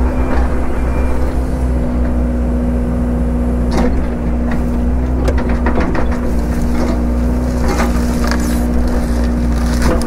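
Excavator's diesel engine running steadily while wood cracks and snaps under it in short clusters, around four seconds in, again between five and six seconds, and near eight seconds.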